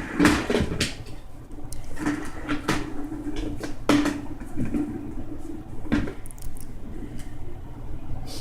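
A series of irregular knocks and clatters, a few seconds apart, over a low hum that comes and goes.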